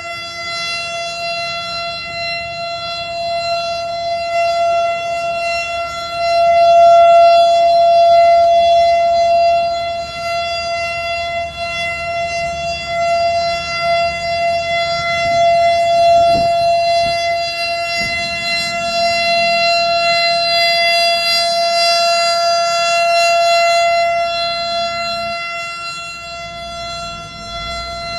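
Outdoor warning siren with stacked horn speakers, rotating on its pole and sounding one steady tone that does not rise or fall in pitch. It grows louder and softer every several seconds as the horns sweep past.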